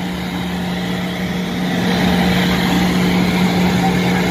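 Nissan Patrol Y60's RD28T turbodiesel straight-six running hard under heavy load in deep mud, held at steady revs; the note swells a little about a second and a half in.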